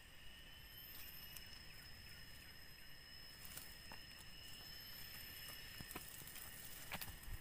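Faint insect chorus: several steady, high-pitched trills sounding together without a break, with a few faint clicks.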